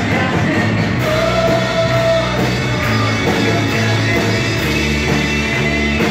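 Live rock-style band playing with a lead singer: electric guitars, bass guitar and keyboard, with a long held note about a second in.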